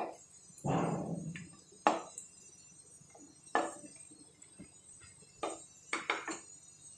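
Wooden spatula scraping and knocking against a non-stick kadai as fried cashews and curry leaves are scooped out of the oil, with a few light clinks and knocks a second or two apart.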